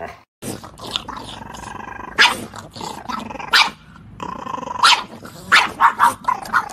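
French bulldog growling, broken by several short, sharp barks.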